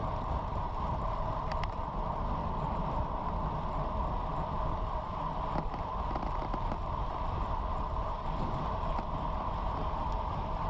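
Steady rushing wind and road noise on a bike-mounted camera, with a road bike riding fast on asphalt at about 29 mph.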